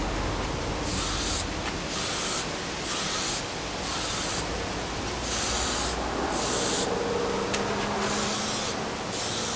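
Aerosol spray paint can hissing in about eight short bursts, each roughly half a second long, as paint is sprayed onto a part.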